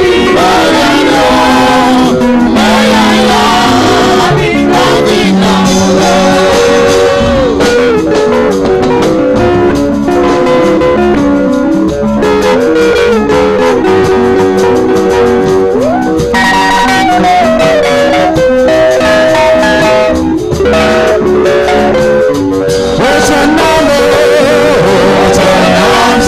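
Church worship music with a steady beat and a congregation singing along.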